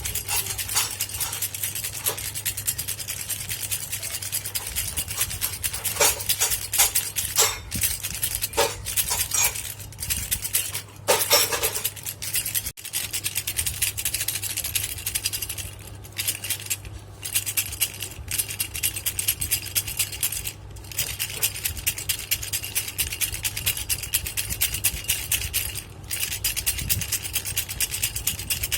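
A baby's rattle toy shaken over and over: a dense run of quick clicks and clinks, broken by a few brief pauses. A steady low hum runs underneath.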